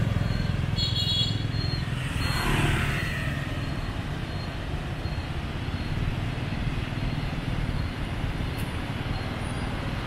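Scooter and motorbike traffic heard from a motorbike riding along a city street: a steady low engine and road rumble, with a short high-pitched beep about a second in.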